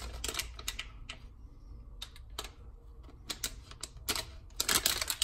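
Crinkling and crackling of a foil blind bag being handled and worked at to find a way to tear it open: scattered sharp crackles, sparse in the middle and turning dense and louder near the end.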